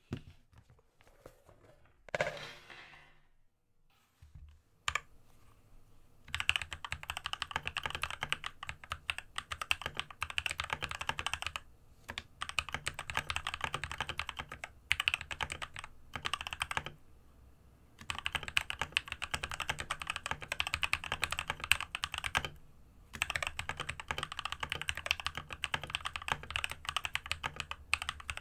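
Fast typing on a Monstargear MK308 optical keyboard with spray-lubed Gateron optical yellow switches on a desk mat, in long runs broken by short pauses. Before the typing starts, about five seconds in, there is a brief noise about two seconds in.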